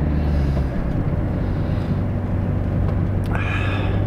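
Car cabin noise while driving: a steady low engine and road drone whose note changes about a second in. A short higher-pitched sound comes near the end.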